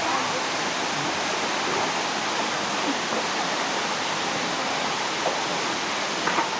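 Steady rushing of the Ohau Stream waterfall, with a couple of brief sharper sounds near the end.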